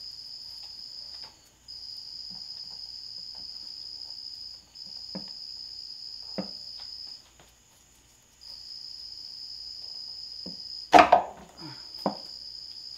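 Light knocks, then a loud metallic clunk about eleven seconds in, as the 545RFE transmission's valve body is worked loose and pulled down out of the case by hand. Under it, a steady high-pitched trill keeps breaking off and starting again every couple of seconds.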